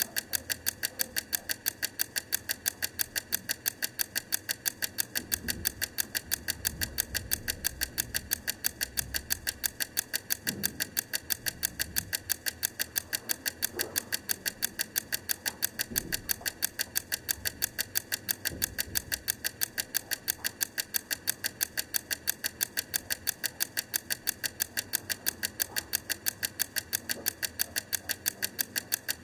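Wrangler Blue Bell clockwork egg timer ticking steadily, about four sharp ticks a second, as its spring-driven mechanism counts down.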